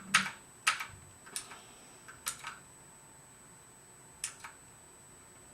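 A few separate key presses on an E-Element Z-88 mechanical keyboard with clicky blue switches, each a sharp click, some followed closely by a softer second click. The presses come in the first half and once more about four seconds in, with a pause between.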